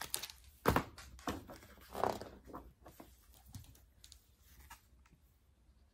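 Soft handling sounds: a few short knocks and rustles, the sharpest in the first second, dying away after about four seconds.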